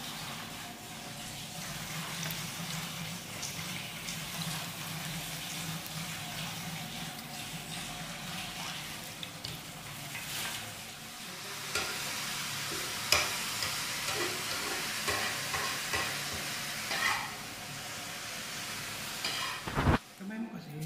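Strips of veal tocino sizzling as they fry in hot oil in a pan, a steady hiss. From about halfway through, a metal slotted spatula clicks and scrapes against the pan as it turns the pieces.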